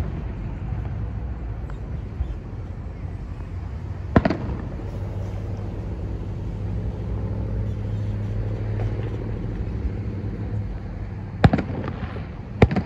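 Aerial firework shells bursting at a distance: one sharp bang about four seconds in and two more near the end, about a second apart. Between them a vehicle engine hums steadily for several seconds, then fades.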